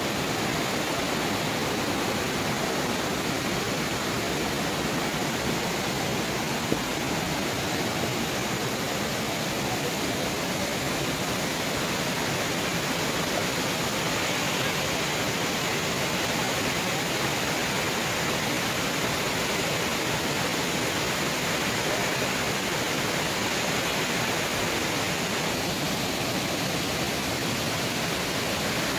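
Shallow rocky mountain stream rushing over stones, a steady, even rush of water.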